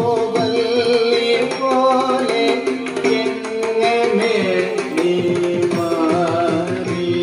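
Carnatic classical music: a mridangam playing a dense stream of strokes under a melody with sliding, ornamented notes, carried by violin and voice.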